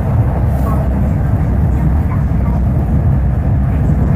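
Steady low rumble of an MTR South Island Line metro train running through a tunnel, heard from inside the car: wheels on rail and tunnel noise, loud and even throughout.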